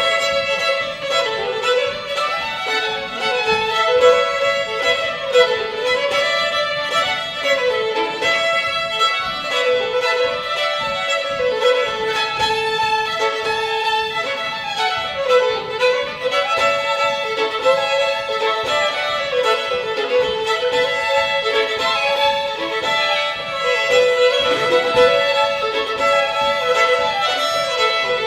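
Two fiddles playing a fast French Canadian reel, the quick running melody sounding over a steady held drone note.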